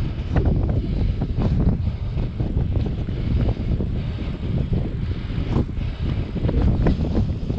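Wind buffeting the microphone of a camera riding along on a moving hybrid bike: a steady low rumble with scattered short clicks and rattles.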